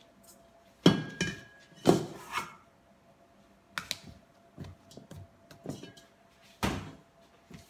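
Knocks and thuds of kitchen utensils on a countertop: a stainless mixing bowl and a plastic dough scraper being set down and moved beside a mound of dough, with lighter taps between. There are three sharp knocks, about a second in, about two seconds in, and a louder one near the end.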